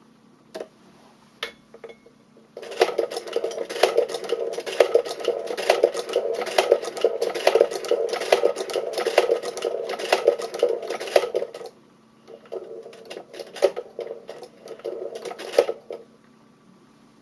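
Singer 29K cylinder-arm sewing machine running: a fast, continuous mechanical clatter for about nine seconds that stops abruptly, then a shorter, quieter, more uneven run of clatter.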